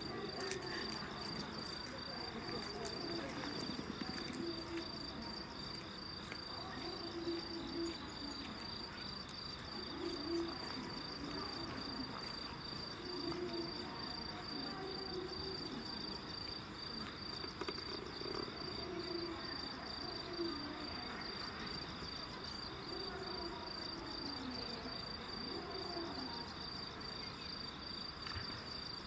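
Night insects chirping steadily in a high, finely pulsing trill, over a faint murmur of people talking.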